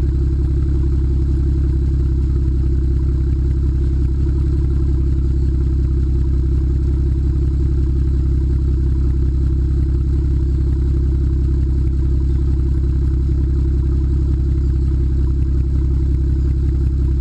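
BMW 335i's N54 twin-turbo straight-six idling steadily through a Remus Race axle-back exhaust and catless downpipes, heard at the quad tailpipes as an even, low rumble with no revving.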